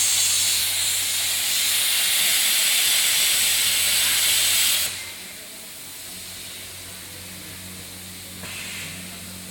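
CNC plasma cutting torch cutting steel plate: a loud, steady hiss of the plasma arc that cuts off suddenly about five seconds in. A low steady hum carries on after, with a brief hiss about a second before the end.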